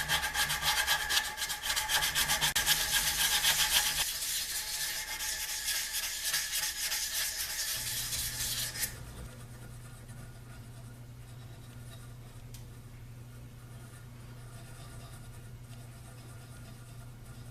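Fine 400-grit sandpaper rubbed back and forth over a steel end cap, quick scratchy strokes that stop about halfway through, smoothing out file marks. After that only a faint steady low hum remains.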